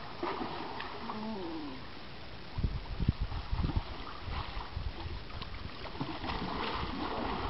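A large fish thrashing and splashing in shallow water as it is hauled toward the shore on a rope, with a cluster of heavy splashes about three seconds in and more churning near the end.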